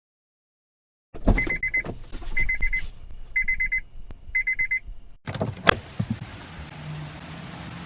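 A car's electronic warning chime beeping in four short bursts of rapid high beeps, about a second apart, among clicks and knocks. About five seconds in it gives way to a steady hiss with a sharp thump and a low hum.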